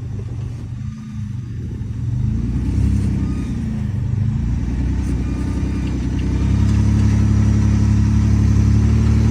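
V6 engine of an off-road rock buggy revving in a few short rises and falls, then held at steady high revs from about six and a half seconds in, under load as the tires try to hook on the rocks.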